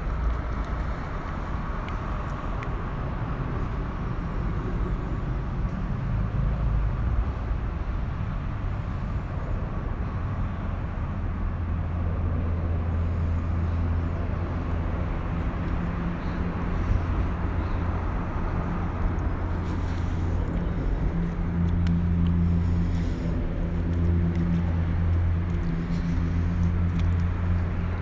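Road traffic crossing the steel-girder bridge overhead, heard from underneath as a steady low rumble and hum that swells and eases as vehicles pass.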